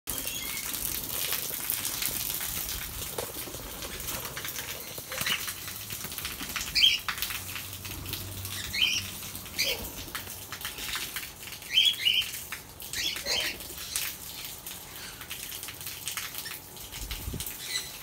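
Cockatiels flapping their wings near the start, then giving short, high chirps every second or two.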